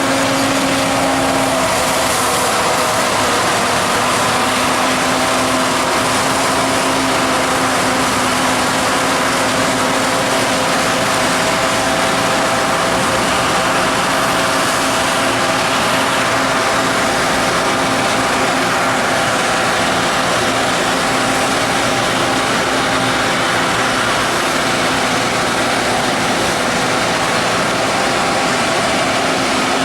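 4QZ-2100 forage harvester running steadily while harvesting corn for silage: its 154 HP engine and cutting drive make a loud, even mechanical din with a steady hum.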